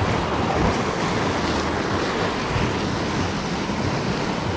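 Sea surf washing steadily on the shore, with wind blowing across the microphone.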